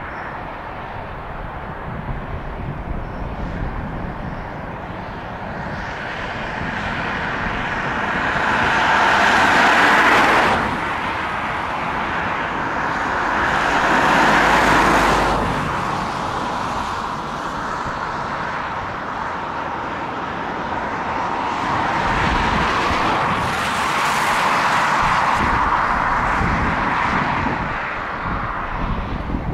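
Distant engine noise that swells and fades, with a low rumble under it: two louder surges in the first half and a longer, gentler one in the second.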